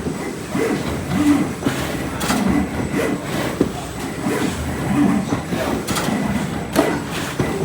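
Several digital plotters running together. Their carriage motors whir in a repeating rhythm, about once a second, with clicks and a faint steady high tone.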